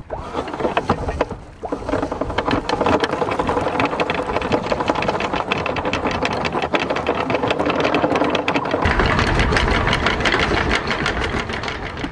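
A machine running with a rapid, even clatter, fuller and louder for the last few seconds.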